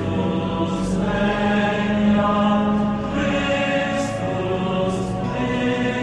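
Voices singing a slow, chant-like hymn in long held notes that change pitch every second or two.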